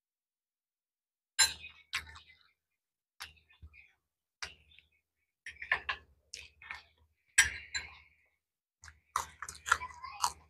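Metal spoons and forks clinking against plates, with a few eating sounds, in short irregular clicks that begin about a second and a half in.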